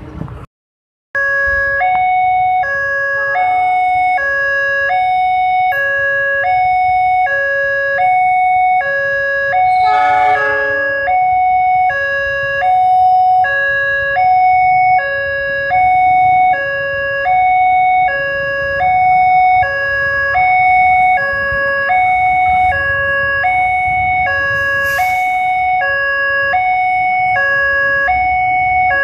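Railway level-crossing warning alarm sounding an electronic two-tone 'teng-tong', a low note and a higher note alternating evenly, a little over one pair per second. It starts about a second in, over the low running of motorbikes and cars queued at the closed barrier, with a short hiss near the end.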